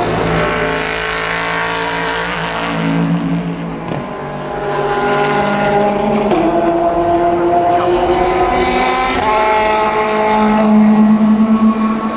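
Endurance racing cars running at high revs on the circuit, several engines overlapping, their pitch stepping up and down a few times. Loudest about two-thirds of the way through.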